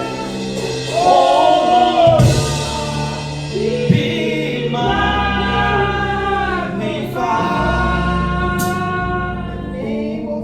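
Gospel worship music: voices singing long, held notes over a steady instrumental backing.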